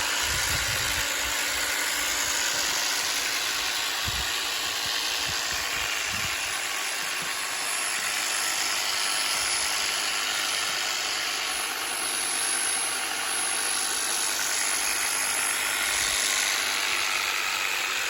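EGO multi-tool's battery-powered hedge trimmer attachment running steadily while cutting a hedge, with a few low thumps in the first few seconds.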